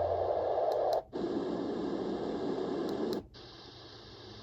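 Yogasleep portable white noise machine switching between its sound settings. A steady hiss cuts out briefly about a second in and comes back deeper, then drops out again after about three seconds and returns as a quieter hiss.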